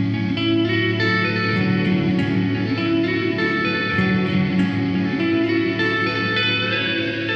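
Instrumental music led by guitar: plucked notes held and changing over a steady low bass, with effects and reverb.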